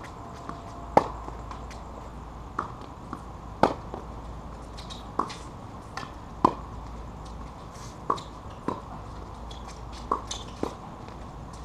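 Tennis rally: balls struck by rackets and bouncing on a hard court, a sharp pop every second or so, about ten in all. The loudest come about a second in and about six and a half seconds in.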